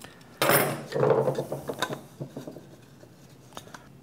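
Small hand tools being handled on a workbench: a wrench clinking on a cordless rotary tool's collet nut, with a loud clatter about half a second in, a second of rattling, then scattered light clicks.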